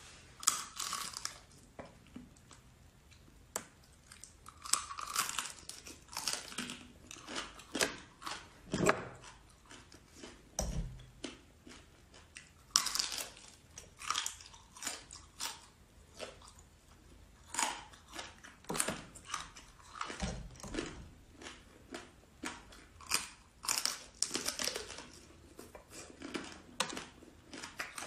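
A person biting and chewing crunchy fried food close to the microphone, with sharp crackling crunches coming in irregular clusters.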